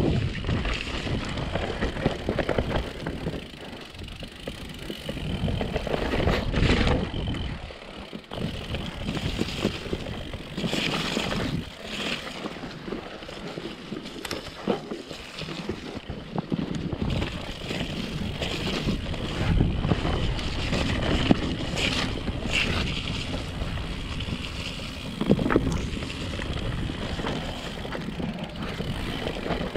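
Mountain bike riding down a forest dirt singletrack: tyres rolling over dirt and roots, with scattered knocks and rattles from the bike over bumps. Wind buffets the camera microphone throughout.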